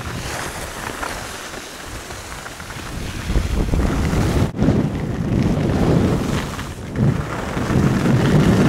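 Wind buffeting the microphone with the hiss of skis sliding over snow; the low rumble grows louder about three seconds in.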